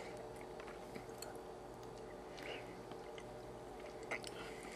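Faint eating sounds: a plastic spoon squishing through thick yogurt in its cup and quiet chewing, with a few small clicks over a low steady hum.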